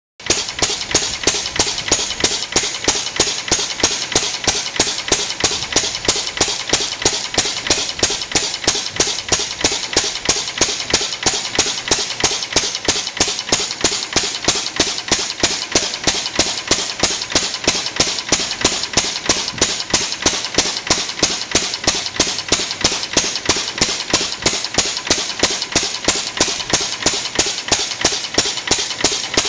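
Fairbanks Morse 3 hp throttle-governed stationary engine running at a steady speed, with a sharp, even exhaust beat. Being throttle-governed rather than hit-and-miss, it fires on every cycle with no skipped beats.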